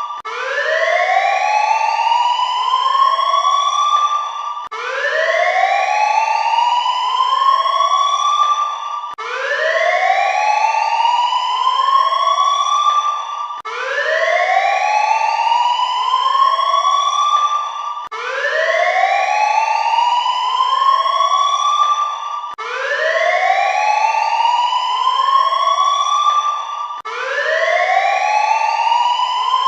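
Warning siren wailing in a repeating cycle: the pitch rises and levels off, then drops and starts again about every four and a half seconds. Fainter, slightly later copies of each rise overlap it. It is presented as a war alert siren in Afghanistan.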